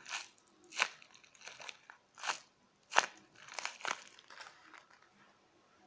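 Paper squishies made of taped paper crinkling as they are handled, in several short rustles, the sharpest at about three seconds in.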